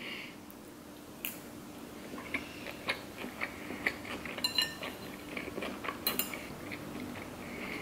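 Close-miked chewing of a sushi roll, with scattered small wet mouth clicks and light taps of metal chopsticks against the plate. A faint steady hum runs underneath.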